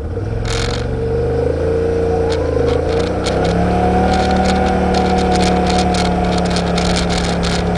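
Yamaha RMAX side-by-side's engine running, its pitch dipping and rising in the first few seconds and then holding steady, picked up by a Surfola SF530 action cam. Over it comes a rapid, horrible clicking rattle from the camera's loose buttons vibrating.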